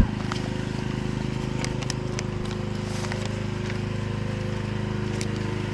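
An engine idling steadily, with a few faint clicks over it.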